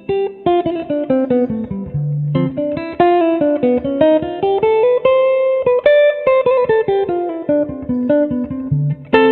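Background music: plucked guitar picking out a melody of quick single notes that climbs to a held high note about five seconds in, then falls again.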